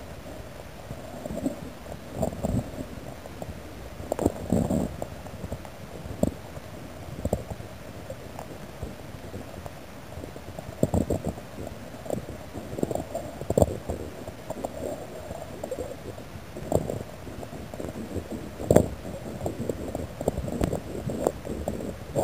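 Underwater handling noise of a camera carried by a freediver: irregular muffled knocks and low rumbles over a steady hiss, the sharpest knock about nineteen seconds in.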